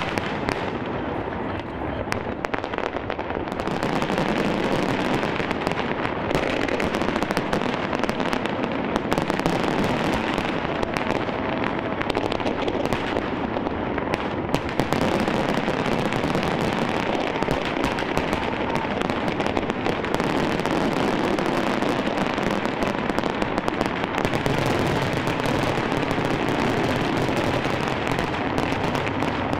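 Aerial fireworks going off in a dense, continuous barrage of bangs and crackling. It is somewhat thinner for the first few seconds, then fuller and steady.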